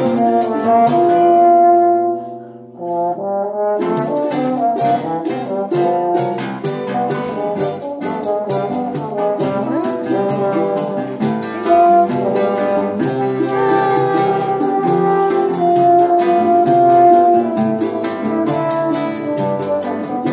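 Choro ensemble playing: a French horn carries sustained melody notes over strummed and plucked acoustic guitars and cavaquinho, with flute and steady pandeiro strokes keeping the rhythm. The music thins and drops briefly about two seconds in, then the full group comes back in about four seconds in.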